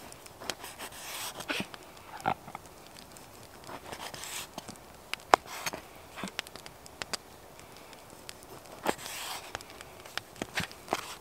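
Knife slicing a slab of rind-on bacon on a wooden cutting board: a few short sawing strokes and scattered soft clicks, with one sharp tap of the blade on the board about five seconds in.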